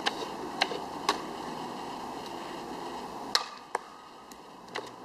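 Several sharp, short clicks or knocks at irregular intervals over a steady background hiss, the loudest about three and a half seconds in.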